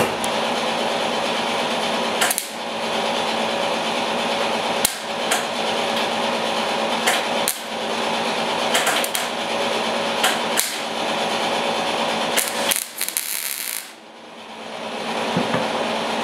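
MIG welder crackling steadily as it lays welds on the steel fuel tank, in runs of two to three seconds with brief breaks, then stopping about 14 seconds in. The stop-and-start goes with a gun trigger the welder says is not working very well.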